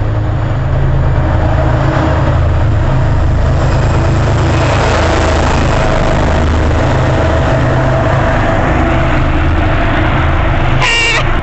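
MBTA commuter rail diesel locomotive running loud, a steady heavy low rumble with a whine over it. Near the end come two short high-pitched beeps about a second apart.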